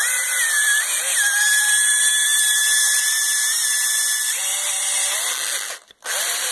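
Electric hand drill boring out a stripped bolt hole in an aluminum cylinder head for a Helicoil insert, the bit guided through the cam cap: a steady high motor whine over a hiss of cutting. The whine drops in pitch about four seconds in as the drill slows, then cuts out briefly near the end and starts again.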